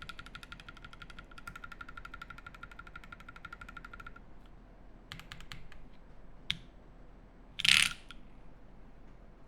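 A spinning metal gadget making a fast, even run of mechanical clicks with a ringing tone, stopping abruptly about four seconds in. A few scattered clicks follow, then one loud, brief clatter near the end.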